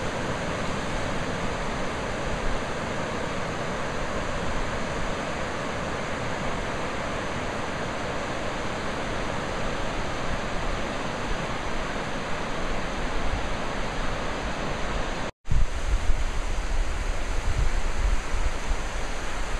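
Ocean surf breaking on a flat sandy beach, a steady even wash of noise. After a short break about three quarters of the way through, wind buffets the microphone over the surf.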